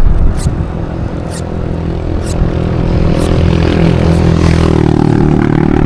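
A motor vehicle's engine running, its pitch rising about five seconds in as it speeds up, with a light high tick about once a second.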